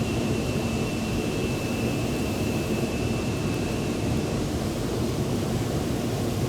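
Mountain stream rushing steadily, a low, even sound of running water. A faint thin high tone runs under it and stops about four seconds in.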